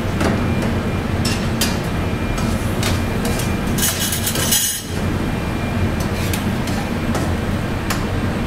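Metal ladle and spatula clinking and scraping against a steel wok during stir-frying, over a steady low rumble. A longer, louder burst of scraping comes about four seconds in.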